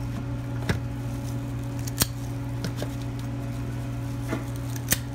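Metal squeeze-handle portion scoop clicking sharply as its lever sweeps out scoops of tuna, three loud clicks and a few fainter ones, over a steady low hum.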